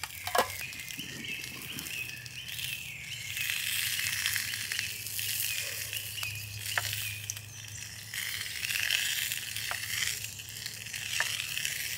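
Pork sausage sizzling in a cast iron skillet over a campfire: a fluctuating hiss, with a few sharp clicks.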